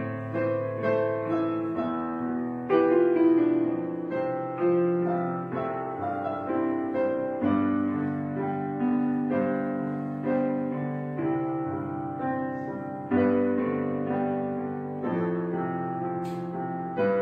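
Slow, gentle background piano music: single notes and chords struck every second or so, each fading away before the next.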